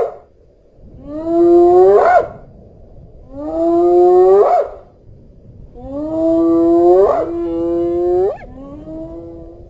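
Spotted hyena whooping: a series of four long, low calls, each ending in a steep upward swoop, repeated about every two seconds, with a brief tail of an earlier whoop right at the start.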